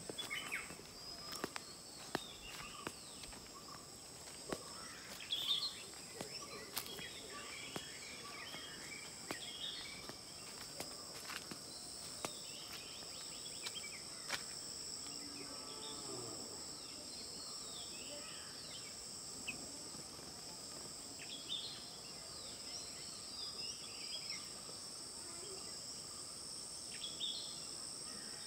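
Steady, high-pitched drone of insects, with many birds chirping and calling throughout and a few sharp clicks.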